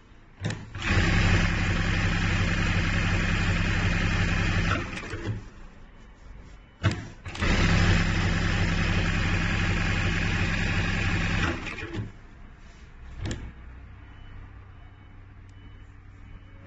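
ZY1968 computerized lockstitch sewing machine running and stitching in two bursts of about four seconds each, a steady motor and needle hum, each begun by a sharp click; between and after the runs only a quieter hum remains.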